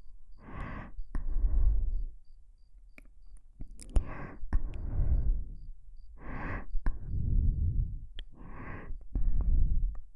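Slow, close breathing into a KU100 binaural dummy-head microphone: four breath cycles, each a short brighter breath followed by a longer, heavier one. A few small lip clicks sound between the breaths.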